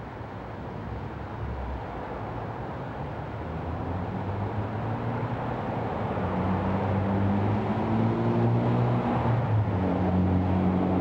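A motor vehicle engine running and getting louder, with a low steady hum that comes in about four seconds in and shifts slightly in pitch twice.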